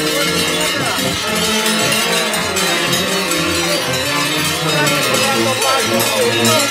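Many large cowbells clanging together without a break, worn at the waist by masked carnival figures as they walk in procession. Their overlapping rings come at many different pitches, with crowd voices faintly beneath.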